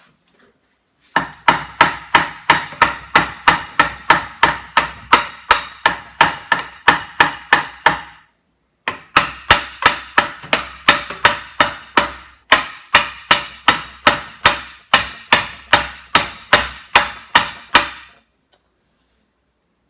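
Hammer blows struck in a steady rhythm, about three a second, each ringing briefly. Two runs of strikes with a short pause between them.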